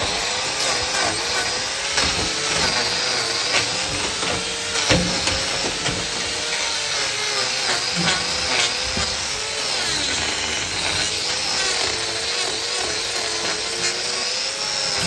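Electric angle grinder with a trimming disc grinding down the horn of a cow's hoof. The motor runs continuously, and its pitch wavers up and down as the disc bites into the hoof and eases off.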